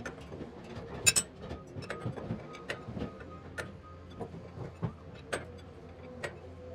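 Steel winding bars clinking and clicking in the winding cone of a garage door torsion spring as the spring is wound up by hand under tension. The sharp metal clicks are irregular, several a second, and the loudest comes about a second in.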